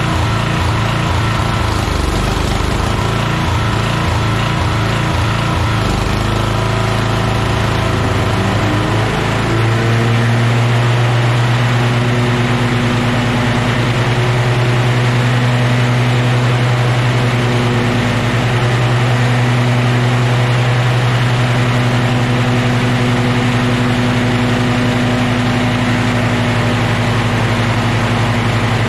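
Toro Wheel Horse 210-5 lawn tractor engine surging at high idle with no load, its speed hunting up and down. About nine seconds in the mower deck is engaged and the engine settles into a smooth, steady run under load, the surge gone.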